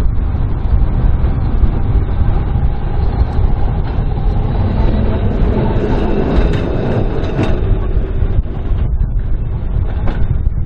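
Heritage Blackpool tram passing close by: wheels on rail and a faint motor whine build to a peak about two-thirds of the way in, with one sharp click as it goes past, over a steady low rumble of wind on the microphone.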